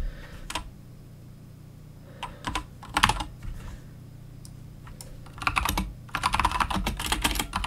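Typing on a computer keyboard to enter a terminal command: a few scattered keystrokes, then a quick run of keystrokes from about five seconds in. A low steady hum sits underneath.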